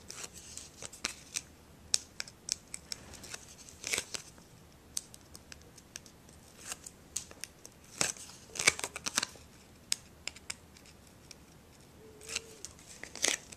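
Backing strips being peeled off double-sided score tape on a paper label: scattered small clicks and papery scratches, thickest about four seconds in, around eight to nine seconds, and near the end.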